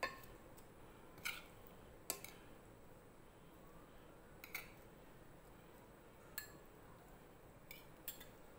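Metal spoon clinking against a ceramic bowl while eating from it: about seven light, separate clinks, a second or two apart.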